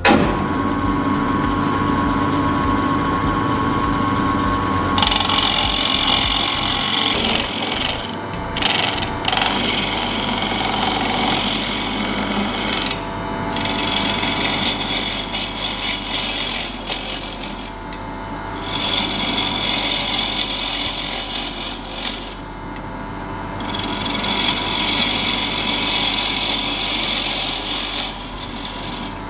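Union Graduate wood lathe turning a beech bowl blank. The lathe hums steadily for about five seconds, then a bowl gouge cuts into the spinning wood with a loud scraping hiss that comes in long spells, stopping briefly three times as the tool is lifted off.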